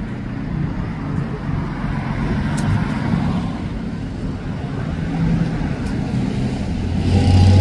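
Road traffic: motor vehicle engines running nearby, getting louder near the end.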